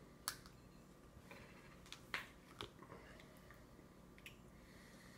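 Near silence broken by a handful of faint clicks and taps from a toddler's spoon and stainless-steel bowl on a high-chair tray, the clearest about a quarter second in and about two seconds in.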